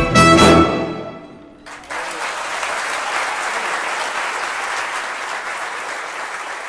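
Symphony orchestra ending a piece on a loud final chord that rings and dies away within the first two seconds, followed by steady applause from the audience.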